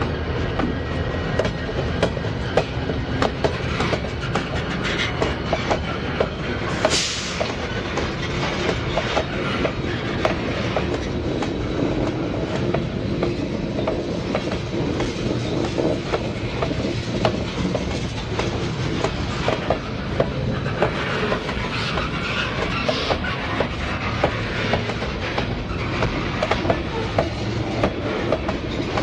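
Norfolk Southern freight train of covered hopper cars rolling past close by, steel wheels clacking steadily over rail joints. The diesel locomotive's engine fades in the first second as the locomotives go by. A sharp burst of noise comes about seven seconds in, and a bout of wheel squeal follows around twenty seconds in.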